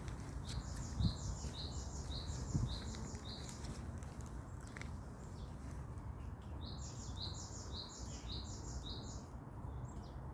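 A bird singing a repeated phrase of quick high notes, about half a dozen in a run, twice with a pause of a few seconds between. Two soft low thumps come in the first few seconds, over a steady low rumble.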